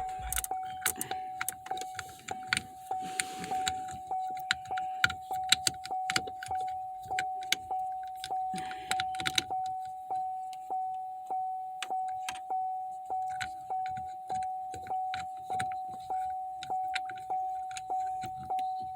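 Buick Verano's dashboard warning chime dinging over and over, one tone repeating a little under twice a second, with light clicks and rattles of parts being handled at the shifter console.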